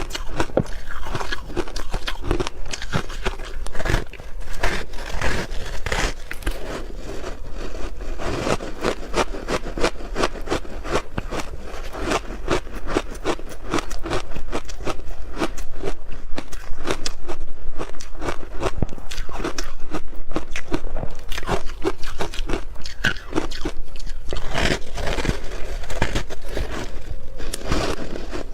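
Ice being bitten and chewed, a continuous run of sharp crunches and cracks close to the microphone.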